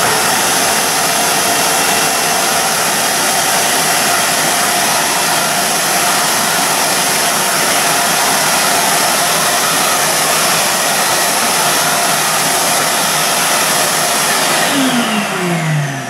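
Titan TTB350VAC 1300 W wet and dry vacuum cleaner running steadily at full suction as its floor nozzle picks up water from a tiled floor. Near the end it is switched off and the motor winds down with a falling whine.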